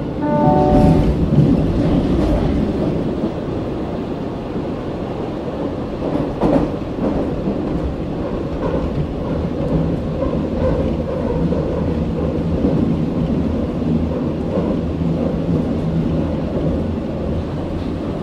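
Berlin U-Bahn F79 train standing at an underground platform, its onboard equipment giving a steady hum over a low rumble that echoes in the station. About half a second in, a short run of falling stepped tones sounds.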